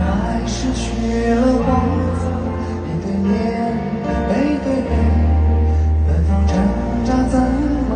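Pop music with a singing voice over long held bass notes.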